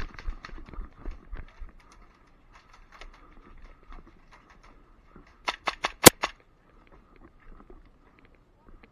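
Quick scuffling steps at first, then a rapid string of about six sharp airsoft pistol shots around five and a half seconds in, one of them much louder than the rest.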